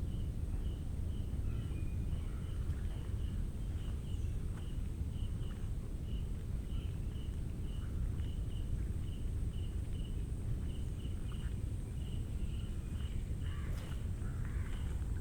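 Mangrove forest ambience: a small creature chirps steadily about twice a second over a constant high whine, with faint scattered calls, all above a steady low rumble.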